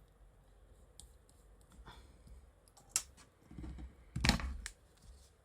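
Small clicks and taps of a precision screwdriver and tools working on a smartphone's internal frame as the last small screw goes in, with a louder knock about four seconds in.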